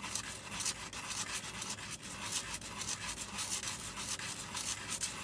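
The cracked plastic rubber-sac part of a Wing Sung 233 fountain pen being rubbed back and forth on 220-grit emery paper laid on a flat glass table: a steady gritty scraping in strokes of about two or three a second. The sanding is flattening the broken face until it is uniform.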